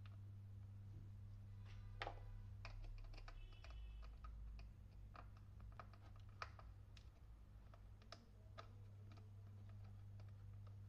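Faint, irregular clicks and scrapes of a small screwdriver and fingers working the terminal screws and plastic rear cover of a Philips electric iron, with the loudest clicks about two seconds in and again past the middle. A steady low hum lies underneath.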